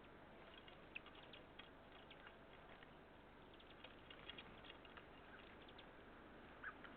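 Faint, scattered short ticks and chips from small songbirds feeding, with one slightly longer call near the end, over a low steady hiss.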